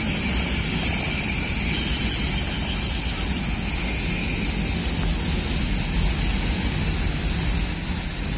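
Freight train of Talbot covered hopper wagons rolling past at close range: a steady rumble of wheels on rail with a continuous high-pitched squeal from the wheels.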